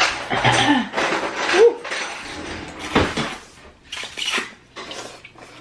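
Dishes and cutlery clattering: utensils clinking and knocking against bowls and containers, with a few separate sharp knocks in the second half.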